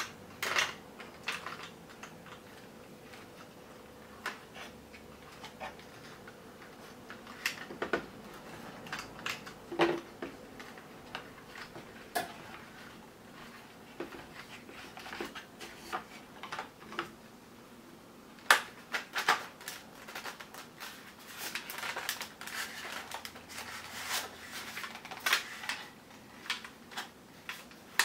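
Hard plastic parts of a toy gel ball blaster clicking, knocking and rattling as they are handled and fitted together, with scattered sharp clicks that come thicker in the last third.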